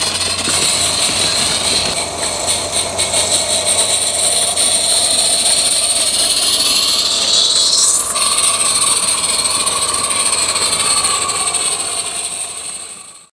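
A live-steam garden railway locomotive running, with a steady hiss of steam and a faint regular beat. A rising whine a little past halfway breaks off suddenly, and the sound fades out at the end.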